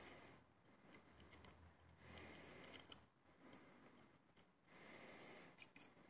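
Faint small clicks and light scraping of picking tools working the pins inside a MIWA JN lock, with a soft rustle that swells and fades every second or two.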